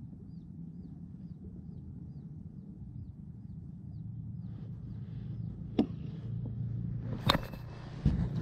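Outdoor ambience: a low steady rumble with a high, short chirp repeated about two or three times a second, fading out about five seconds in. Two sharp clicks come near the end.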